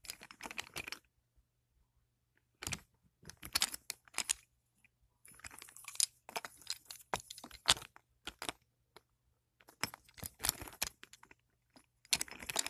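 Wooden toy engines being rolled and pushed along wooden track: clattering and clicking of wooden wheels and bodies against the rails. It comes in several bursts with short pauses between them.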